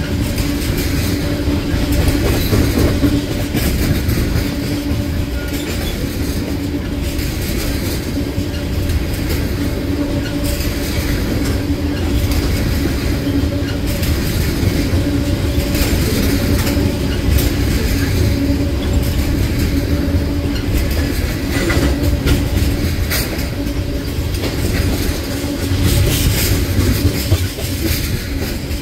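Freight train of tank cars rolling past at close range: a steady rumble of steel wheels on rail with a constant hum, and scattered clicks as wheels cross rail joints.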